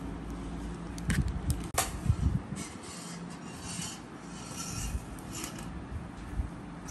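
Takeaway food packaging being handled on a table: two sharp knocks, then a few seconds of rustling and scraping, over a faint steady low hum.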